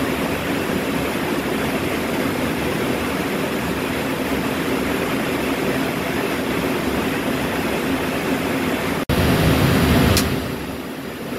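Steady outdoor rumble and hiss. It breaks off suddenly about nine seconds in and is followed by a louder, deeper rumble.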